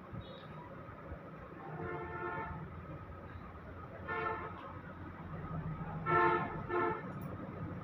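Vehicle horn honking four times: a longer toot about two seconds in, a short one at about four seconds, then two quick toots near the end, over a steady low hum.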